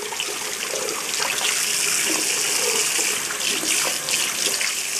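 Bathroom tap running in a steady stream, left on while the water warms to lukewarm.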